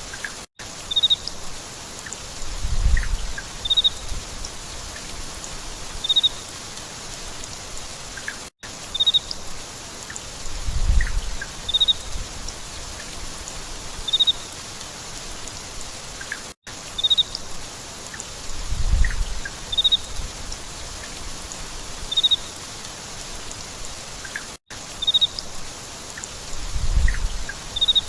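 Steady rain falling, with short high chirps about once a second and a low rumble every eight seconds. The same few seconds repeat in a loop, each time after a brief dropout.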